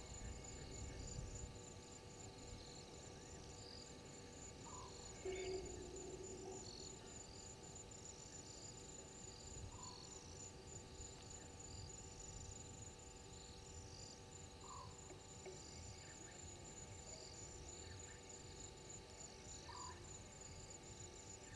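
Faint night bush ambience: insects trill steadily and fast, with scattered higher chirps. A short rising call repeats about every five seconds, and a brief louder sound comes about five seconds in.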